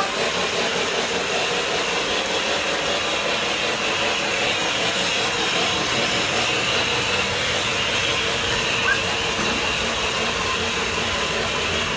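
Lionel model trains running on their track: a steady whir of electric motors and rolling wheels.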